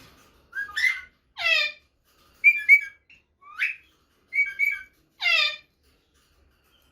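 Rose-ringed (Indian ringneck) parakeet calling: about six short shrill calls over some five seconds. Some sweep down in pitch; others are quick doubled whistled notes. The calls are offered as the female's mating call, which draws males.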